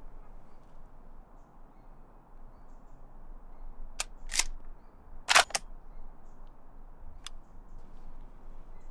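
Scoped hunting rifle being readied, a quick run of sharp mechanical clicks and clacks about four seconds in, the loudest near the middle, then one small click a couple of seconds later, over a steady outdoor hiss.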